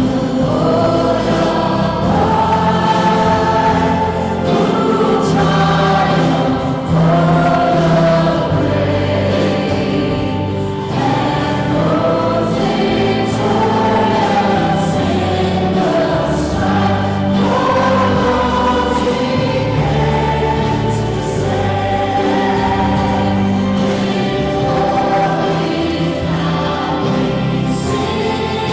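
A choir singing a hymn with instrumental accompaniment.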